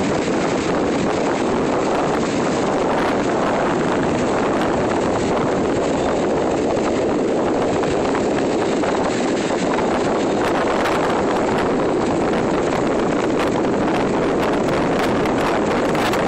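Steady rush of strong wind buffeting the microphone, mixed with waves washing on the shore at high tide.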